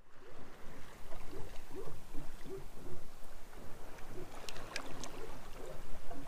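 Water rushing and splashing along the hull of a Privilege 585 sailing catamaran under way, with a few sharper splashes about four and a half to five seconds in.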